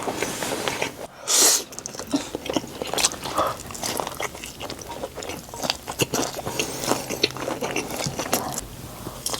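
Close-miked eating sounds of a person biting and chewing food, with many small crunches and wet clicks, and one louder hissing burst about a second and a half in.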